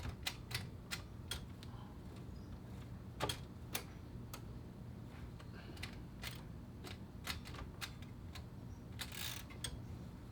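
Irregular clicks and clacks from a 1950s Royal Quiet De Luxe manual typewriter's carriage and Magic Margin mechanism being worked by hand, with a brief rasp about nine seconds in. The automatic margin is not setting reliably; the owner thinks it needs a new spring or lubrication.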